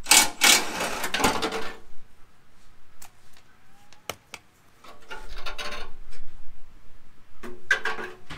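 Metal skid plate scraping and clanking against the truck's underbody as it is worked free and lowered down, in three rattling bursts with a couple of sharp knocks between them.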